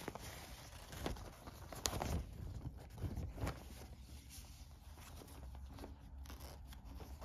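Thin printed fabric flag rustling and crinkling as it is unfolded and spread out by hand: several short rustles and a sharp tick over the first three and a half seconds, then softer handling.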